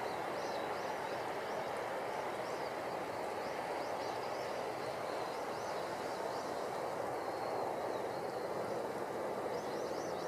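Steady outdoor background noise, with a small bird chirping over it again and again: short high chirps about twice a second, breaking off for a while near the end and then returning.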